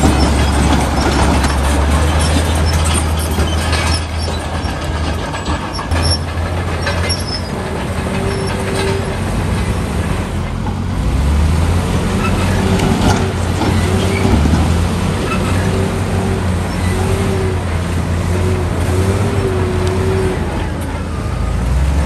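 Heavy diesel earthmoving machinery running with a deep, steady engine rumble. From about a third of the way in, a faint higher tone comes and goes in short pieces.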